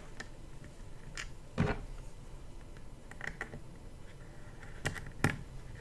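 A handful of scattered light clicks and knocks from handling a plastic handheld digital multimeter: its rotary selector dial being turned and its battery cover being fitted. The loudest click comes about a second and a half in.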